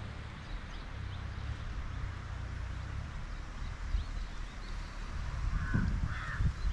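Wind rumbling on the microphone, with faint bird chirps. Near the end a crow caws twice and there are a few low thumps.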